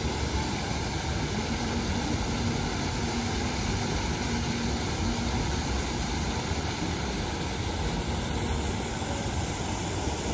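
Salmon Street Springs fountain's ring of water jets arcing up and splashing down onto the basin and wet plaza: a steady rushing wash of falling water.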